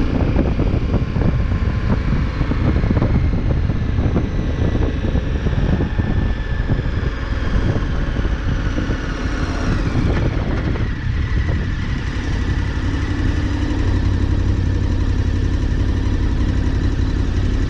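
Motorcycle engine, heard from on the bike, winding down as the bike slows, then idling steadily from about twelve seconds in.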